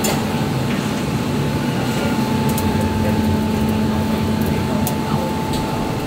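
Steady machine hum of a kitchen fan or blower, with a few light metal clinks from the steel skewers and hooks against the drum oven.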